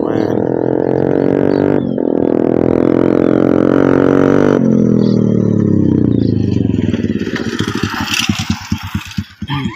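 An engine runs at a steady high pitch, with a short break about two seconds in. About halfway through its pitch falls as it slows, and its firing beats come apart into separate pulses before it fades out near the end.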